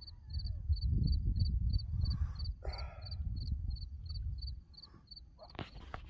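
Faint coyote howls trail off in the first second, over a small creature's short, high chirp repeating about three times a second. A loud low rumble of noise on the microphone covers most of the middle, and there is a sharp knock near the end.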